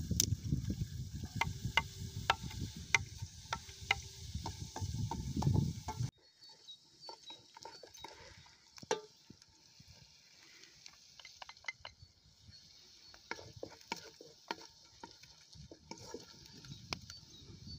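A knife scraping and tapping chopped ingredients off a board into a pot, with sharp clicks over a low rumble. After a sudden cut about six seconds in, a wooden spoon stirs soup in a metal pot, with sparse light clicks and knocks.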